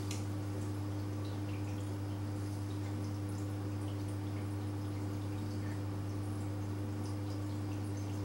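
Steady low electrical hum from marine reef aquarium equipment, with faint scattered drips and trickling water.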